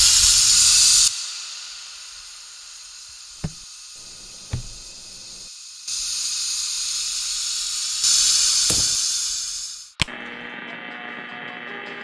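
Stovetop pressure cooker venting steam through its weight valve: a loud hiss for about a second at the start, a softer hiss with two light knocks, then loud hissing again that fades out. A sharp click about ten seconds in, after which music starts.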